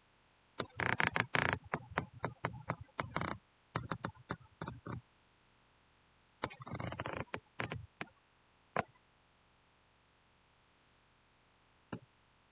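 Computer keyboard and mouse clicking: two runs of quick clicks and taps, then two single clicks with pauses between.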